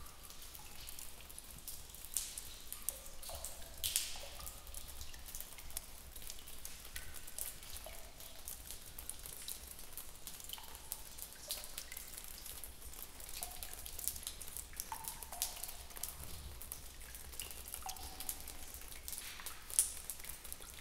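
Water dripping in a cave: drops falling at irregular intervals, several of them landing as short pitched plinks.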